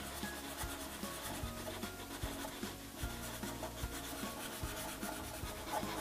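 Felt-tip markers rubbing on paper as two drawings are coloured in: a soft, steady scratchy rubbing made of many quick strokes.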